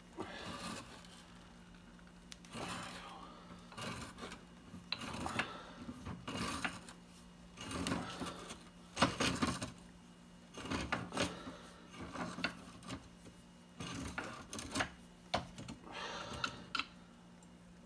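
Irregular clicking, scraping and clattering of hand tools on metal plumbing fittings as corroded pipe is worked loose and taken apart, in short bursts, over a faint steady hum.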